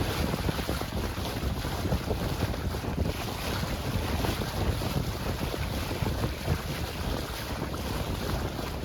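Wind buffeting the microphone and water rushing along the hull of a sailboat sailing upwind in about 15 knots of wind, in uneven gusts.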